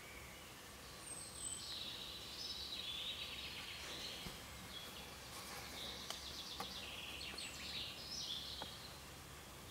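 Songbirds singing a run of high, warbling phrases and fast trills from about a second in until near the end, over a faint steady hiss.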